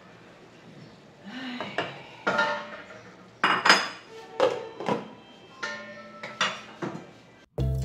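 Cookware knocks and clinks: a wooden spoon stirring and tapping a metal cooking pot, and a glass lid set down on the pot, about a dozen separate knocks, the loudest about three and a half seconds in. Background music starts suddenly right at the end.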